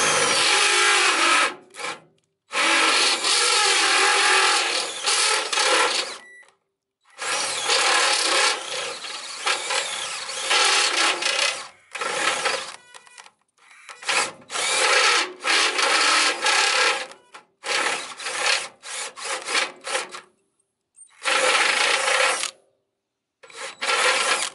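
DeWalt cordless drill turning a step bit through a powder-coated metal bumper, opening a pre-drilled pilot hole out to about 1 1/8 inch. The drill runs in repeated bursts of one to five seconds with short stops between.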